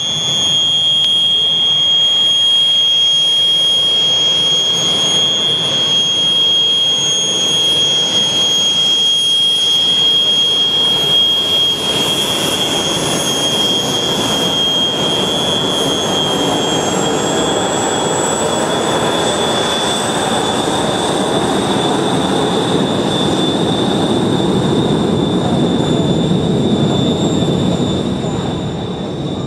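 Fouga CM.170 Magister's twin Turbomeca Marboré turbojets running as the jet taxis: a steady high whine over a rushing roar. The whine rises a little about halfway through.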